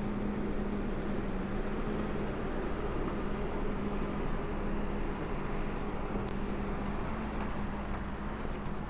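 City street traffic with a steady low hum throughout.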